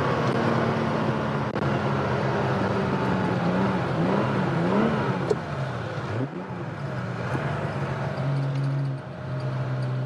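1979 Porsche 911 SC's air-cooled 3.0-litre flat-six pulling hard, its pitch rising and falling twice through the middle as the throttle comes on and off. About six seconds in it dips and climbs again, then it settles to a steady lower drone for the last two seconds. The engine is freshly rebuilt and being run in.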